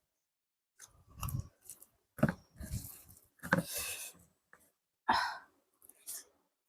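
Close-miked eating of biryani and chicken curry: irregular chewing and mouth sounds, with a few louder sharp clicks or smacks about two, three and a half, and five seconds in.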